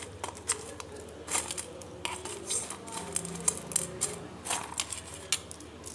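Irregular light clicks and taps of small spices and kitchen containers being handled off-camera while spices are gathered into a steel bowl.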